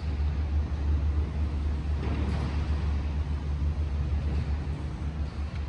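Steady low rumble of background noise with a faint hiss above it, swelling softly about two seconds in.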